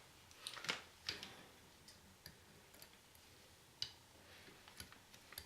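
Faint, irregular small clicks and ticks from hands working small parts and tools while soldering a bullet connector, about eight in the space of five seconds, over a quiet room.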